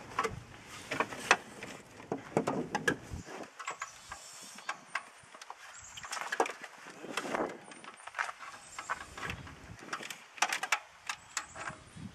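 Irregular clinks, clicks and knocks of a 3/8 in socket wrench working against metal while it is fitted onto the serpentine belt tensioner, with ratchet clicks among them.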